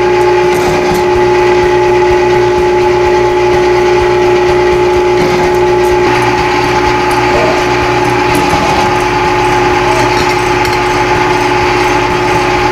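Weston Pro Series #12 electric meat grinder (0.75 HP) running its cuber/tenderizer attachment, a steady motor hum at an even pitch, as venison and elk steaks are fed through the blades.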